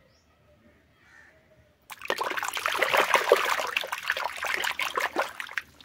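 A hand churning and splashing muddy water in a plastic basin: a dense run of splashes that starts suddenly about two seconds in and stops just before the end.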